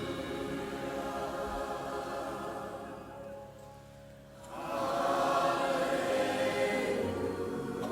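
Worship band music with a choir singing sustained notes. The music thins out about three seconds in and swells back with the voices about a second and a half later.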